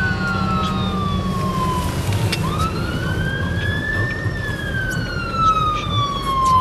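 Fire engine siren on a slow wail: one long falling sweep, a rise starting about two and a half seconds in, then a slow fall again as it approaches. Underneath is a steady low engine rumble.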